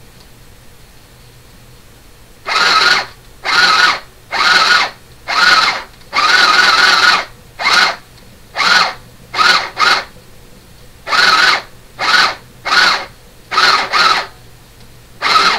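LSS 202 mini sewing machine stitching in about a dozen short runs on its foot pedal, each from a fraction of a second to about a second long, starting a couple of seconds in.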